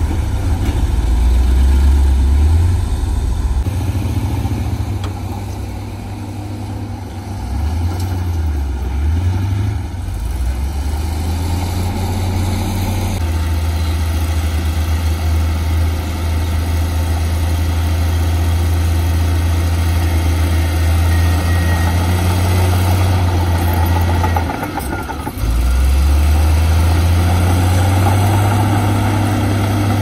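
Diesel engines of heavy earthmoving machinery running steadily, their low note dipping and rising a couple of times as the machines work, with a brief drop about 25 seconds in.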